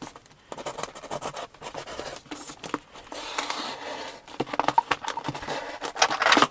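Pocketknife blade slitting the packing tape on a cardboard box: a run of scratchy rasps and ticks, with a longer steady rasp about three seconds in and the loudest rasps near the end.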